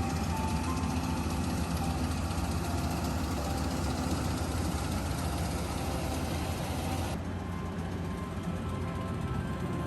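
A steady engine hum with an even low rumble and a broad hiss above it; the hiss drops away about seven seconds in.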